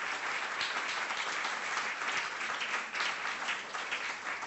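Audience applauding, a steady patter of many hands clapping that eases slightly near the end.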